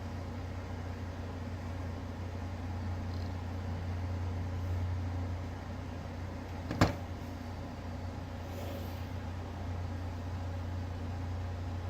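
A steady low hum throughout, with one sharp click about seven seconds in as a part or tool of the mixer grinder is handled during disassembly.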